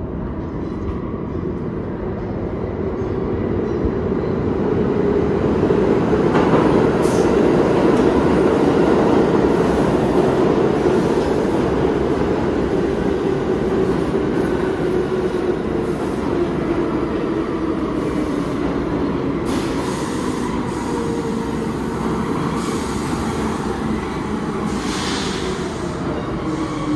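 New York City subway train running past along the station track, with loud steel-wheel rumble and a whine that slowly falls in pitch as it slows. Short wheel squeals come several times.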